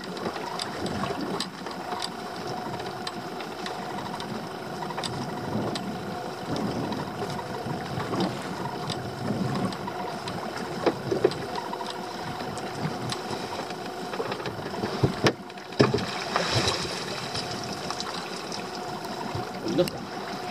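Small boat's engine idling steadily while a lobster pot is hauled up by its rope over the side, with scattered knocks and clicks, and water splashing about two-thirds of the way through as the pot comes up to the gunwale.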